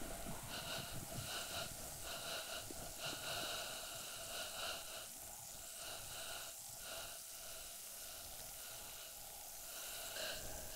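A woman's faint, breathy panting, in soft pulses that come about twice a second at times.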